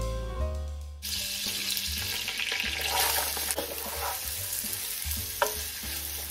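Lumps of pork fat sizzling as they melt in a hot cooking pot, starting about a second in, with a single sharp tap near the end.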